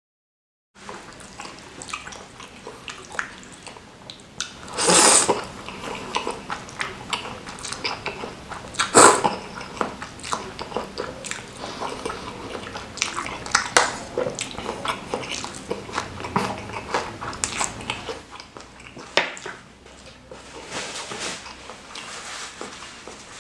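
Close-miked eating sounds of a man eating spicy meatballs and rice vermicelli: many small wet chewing and lip-smacking clicks, with two louder, longer slurping sounds about five and nine seconds in.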